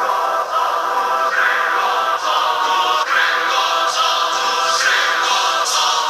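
Choral music with sung voices played through a pair of Aiyima 1.5-inch 5 W full-range speaker drivers on a PAM8610 amplifier board, as a sound test. There is almost no bass.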